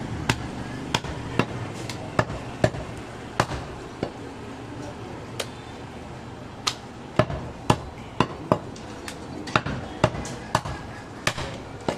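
Butcher's knife striking a wooden log chopping block while goat meat is cut: a string of sharp, irregular knocks, with a short lull in the middle.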